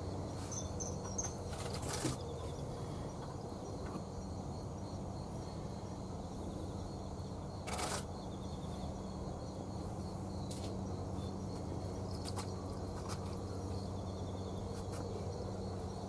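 Common kingfishers giving a few short, high-pitched calls about half a second to a second in: threat calls in a territorial standoff. A few sharp clicks stand out over a steady low hum.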